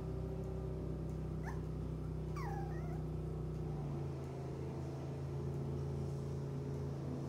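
Yorkshire terrier giving two short high whimpers, the second sliding down in pitch, about a second and a half and two and a half seconds in, over a steady low drone.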